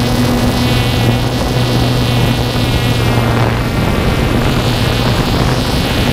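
Steady motor-and-propeller hum of a small aircraft in flight: a low drone with a high, slightly wavering buzz above it, over wind rushing across the microphone.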